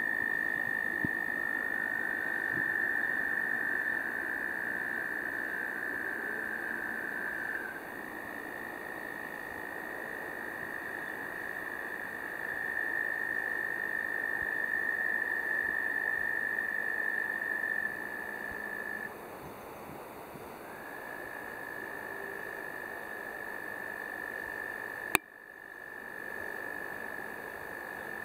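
Frogs trilling: long, steady, high-pitched trills, each held for several seconds. Early on two callers overlap at slightly different pitches, then single trills follow with short gaps between them. A single sharp click about 25 seconds in.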